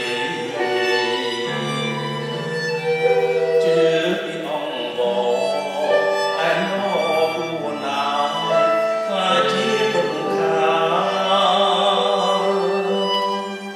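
Live Khmer music from a small ensemble: a bowed string instrument plays a melody over held low notes that shift in pitch every few seconds.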